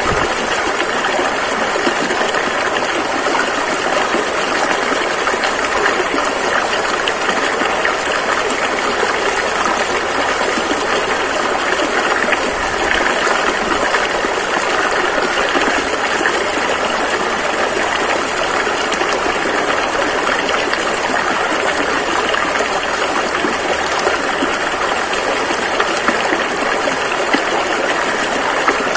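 A fast-flowing river rushing over rocks: a steady, dense rush of water.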